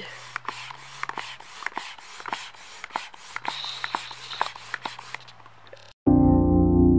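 Hand pump inflating a fitness ball: a run of even, repeating pump strokes with air and rubbing sounds. About six seconds in it cuts off and loud music starts.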